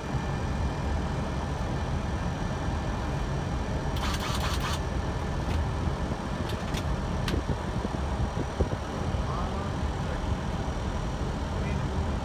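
Steady flight-deck noise of an Airbus A320 on final approach: an even rumble of airflow and engines with faint steady tones above it. There is a brief crackle about four seconds in and a couple of faint clicks shortly after.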